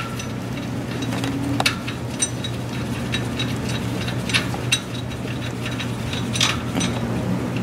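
Scattered sharp metallic clicks and clinks of hand tools and parts being handled in a car's engine bay during alternator removal, over a steady low hum.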